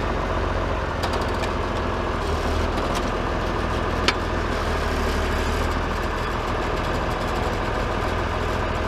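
Farm tractor engine idling steadily, with a single sharp click about four seconds in.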